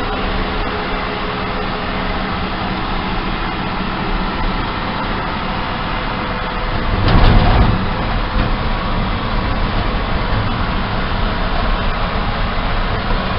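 1966 Dodge D100 pickup driving, heard from inside the cab: a steady engine and road rumble. A brief louder rush comes about seven seconds in.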